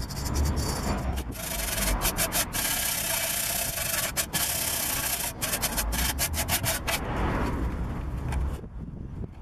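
Wire brush scrubbing rust off a rear wheel hub, steel bristles scratching on rusty metal in rapid back-and-forth strokes, easing off about seven seconds in.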